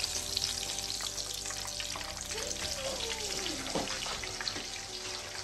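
Chicken pieces frying in hot oil in a pan: a steady sizzle with dense crackling.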